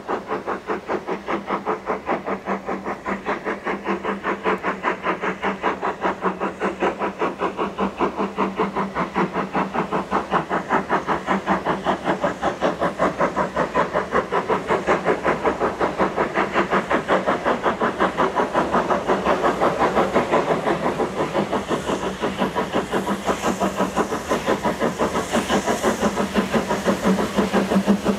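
Steam locomotive under power, its exhaust beats chuffing in a quick, even rhythm and growing steadily louder as it approaches. A steam hiss joins in near the end.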